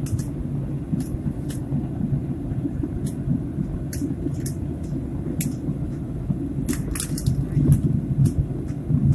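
Airliner cabin noise: a steady low rumble of the engines and airframe, with scattered light clicks and rattles from the cabin.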